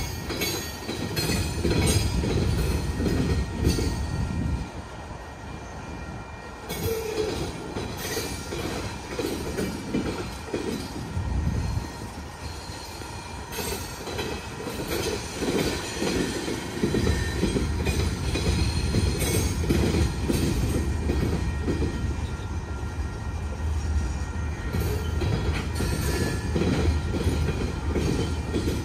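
Norfolk Southern freight train's covered hopper and tank cars rolling past a grade crossing: a continuous rumble of steel wheels on rail, with irregular clicks and clunks.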